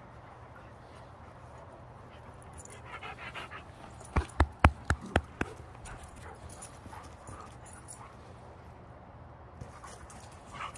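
Dogs at rough play: a brief whine, then a quick volley of about six short, sharp barks, around four a second.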